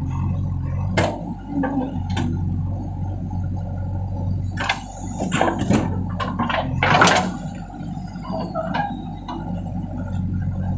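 JCB 3DX backhoe loader's diesel engine running steadily under digging work, with sharp metallic clanks about a second and two seconds in and a cluster of clanks and rushing noise a little past the middle, loudest about seven seconds in.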